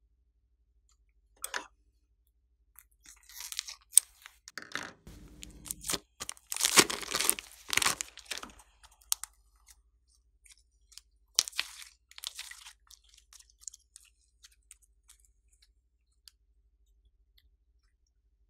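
Slime being mixed and pressed by hand with crunchy add-ins: sticky crackling and crunching, densest about a third of the way in, then scattered clicks and pops that die away to near quiet in the last few seconds.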